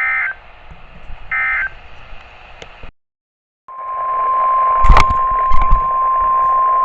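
NOAA Weather Radio receiver sending short warbling SAME data bursts, the end-of-message code after a severe thunderstorm warning, two of them about a second and a half apart. After a brief cut to silence, the steady 1050 Hz weather radio warning alarm tone starts about three and a half seconds in and holds, with a couple of thumps over it about five seconds in.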